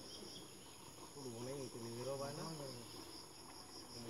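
Steady, high-pitched insect chorus. A low, wavering voice sounds briefly in the middle.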